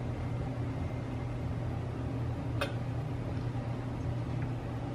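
A person drinking a glass of water down in one go, over a steady low hum; one sharp click about two and a half seconds in.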